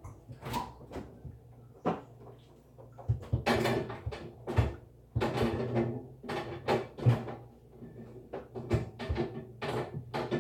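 A string of irregular knocks and clatter as containers are handled and set down in a refrigerator.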